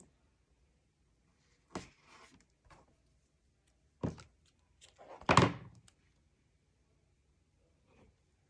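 A few soft thunks and short rustles of paper and small craft pieces being handled and set down on a tabletop, the loudest a little past halfway.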